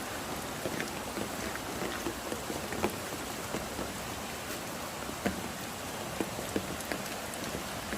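Rain falling: a steady hiss with scattered sharp ticks of single drops striking close by.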